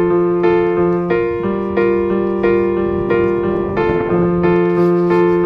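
Background music: gentle piano or electric piano playing evenly repeated chords, about three a second, over slowly changing bass notes.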